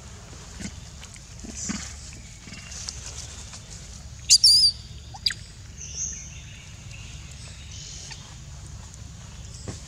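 Outdoor ambience with a steady low rumble, broken about four seconds in by a short burst of loud, high-pitched animal squeaks and a quick falling chirp a second later.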